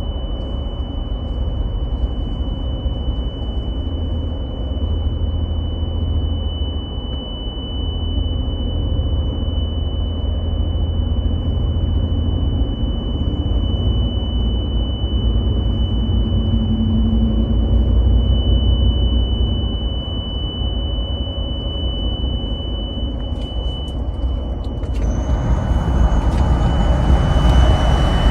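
A loud, steady high-pitched tone coming from a 2023 Toyota Tundra Platinum, held at one unchanging pitch over the low rumble of the truck on the highway. Near the end a rush of wider noise rises over it.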